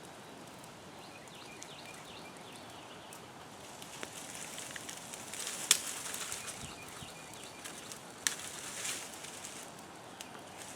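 Burning brush pile crackling, with two sharp pops about six and eight seconds in.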